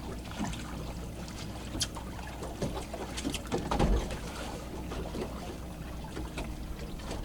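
Water sloshing against a fishing boat's hull, with a steady low rumble and scattered light knocks and clicks.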